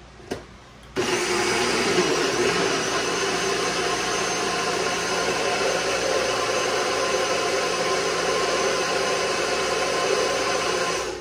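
Electric countertop blender running steadily for about ten seconds, puréeing whole tomatoes into chile de árbol already ground with garlic and onion, for a red salsa. It switches on with a click about a second in and stops just before the end.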